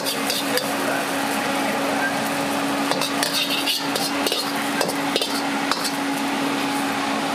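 Metal ladle scraping and clinking in a wok, sweeping out the last bits after a batch of fried rice noodles, with a few sharp scrapes near the middle. A steady hum runs underneath.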